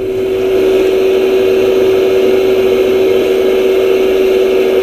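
Barbie Doll'icious electronic toy oven playing its baking sound effect through its small speaker: a steady electronic hum with a rushing hiss over it, the sign that the oven is in its bake cycle.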